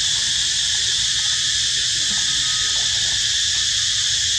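A chorus of insects making a steady, high-pitched buzzing drone that does not change, with a low rumble underneath.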